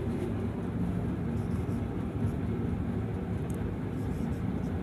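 Steady low mechanical hum at a fixed pitch, with a few faint scratches of a marker on a whiteboard toward the end.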